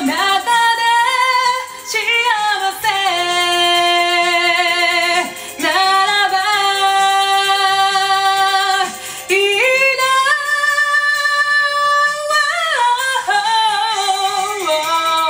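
A woman singing long held notes with vibrato over a karaoke backing track. The notes slide between pitches, about five sustained phrases with short breaths between them.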